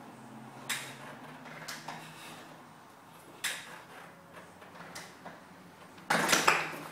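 Honda XL600 single-cylinder engine running at low idle as a steady low hum, with irregular sharp ticks every one to two seconds and a louder clatter near the end. The owner suspects the ticking is an exhaust leak that new exhaust gaskets have not cured.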